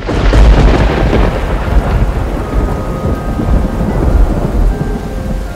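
Thunderstorm: heavy rain hissing over deep thunder rumbling. Faint held musical tones come in about halfway through.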